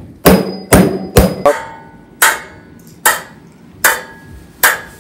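A metal spoon banging on a metal baking tray: three quick bangs, then four slower ones, some followed by a brief metallic ring.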